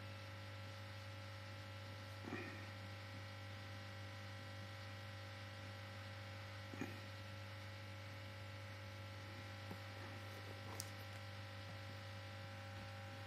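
Steady low electrical hum with a few faint, soft taps spaced several seconds apart.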